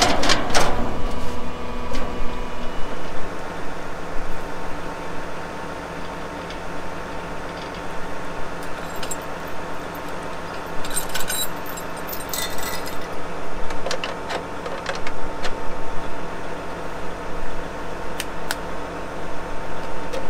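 A vehicle engine idling steadily. Bursts of light metal clinking and jingling come about nine to thirteen seconds in.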